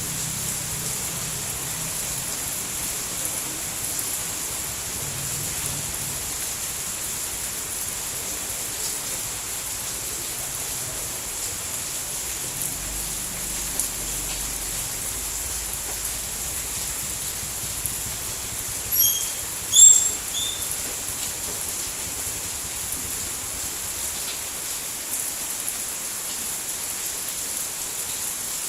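Steady rain falling, an even hiss. A few brief high chirps sound about two-thirds of the way in.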